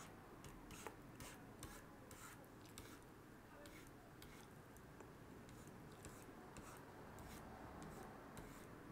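Faint, quick scratchy strokes of a stylus dragged across a graphics tablet, many short strokes in an irregular rhythm, over a quiet room.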